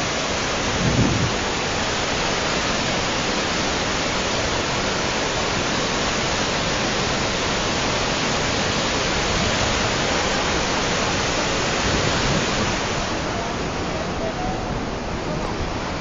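Muddy flash-flood torrent (a volcanic lahar) carrying sand and rocks, rushing steadily down a rocky channel; the hiss eases a little near the end.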